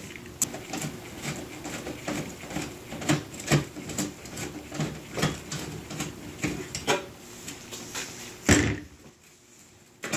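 Irregular clicks and knocks of hands and tools working on the oven door's hinges as the T20 screws come out, with one louder knock near the end.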